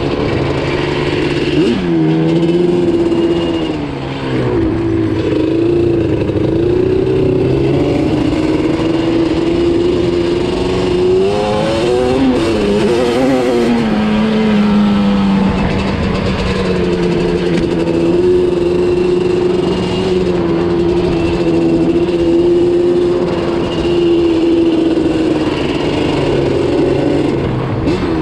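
Yamaha Banshee ATV's twin-cylinder two-stroke engine running under way, its pitch rising and falling with the throttle. The note drops sharply about two seconds in, wavers up and down around the middle, then holds a lower, steadier pitch.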